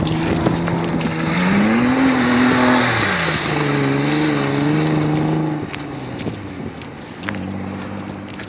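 2006 Kia Sorento's engine revving hard in the mud: it climbs in pitch, drops back and climbs again, wavering under load, over a steady hiss. About two-thirds of the way through the revving fades away, and near the end an engine is heard running steadily at a lower pitch.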